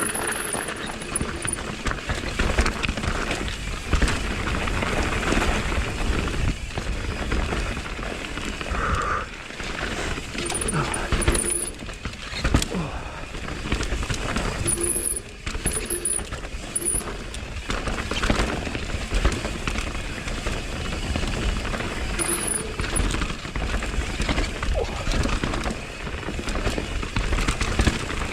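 Mountain bike descending a dirt trail at speed: tyres over dirt and roots with the chain and frame rattling, under a steady rush of wind on the microphone. A few short high chirps come through now and then.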